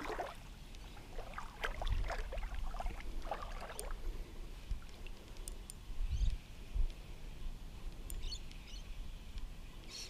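A spinning reel being wound to retrieve a lure, its handle turning with soft clicks and rattles, over wind rumbling on the microphone. A few short high bird chirps come in around the middle and near the end.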